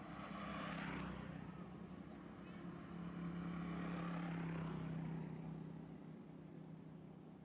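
Passing motor vehicles on a nearby road, their engine sound swelling and fading twice: once in the first second and again, longer and steadier, from about three to five seconds in.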